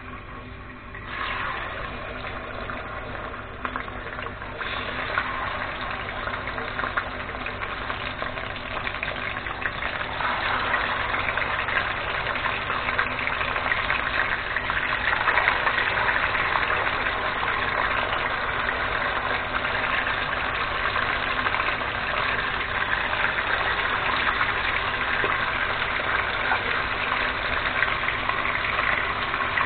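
Beef pieces sizzling in hot oil in a kazan. The sizzle grows louder in steps over the first ten seconds as more pieces go in, then holds steady.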